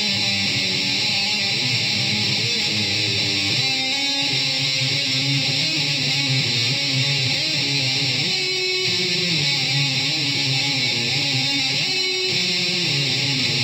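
Electric guitar played solo in an improvised, continuous passage of melodic lines, with a few notes held for about a second.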